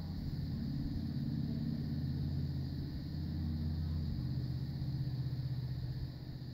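Muffled, low crowd roar from the stands, swelling through a long breakaway run and easing off near the end.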